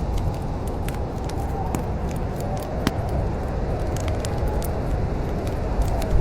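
Wood fire in a fireplace crackling, with irregular sharp pops over a steady low rumble; one pop about three seconds in stands out.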